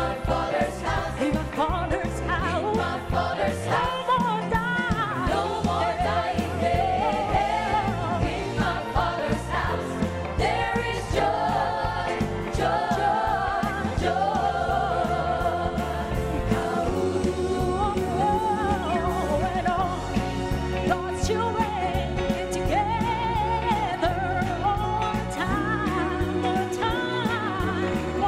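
Gospel song performed by a large choir with a woman singing lead, backed by piano and a band with electric bass and guitar.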